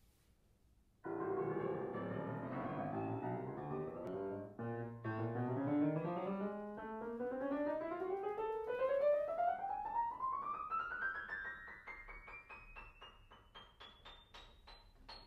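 Knabe 5-foot-7 grand piano being played: full chords start about a second in, then a long run of notes climbs step by step up to the top of the keyboard, growing quieter as it rises.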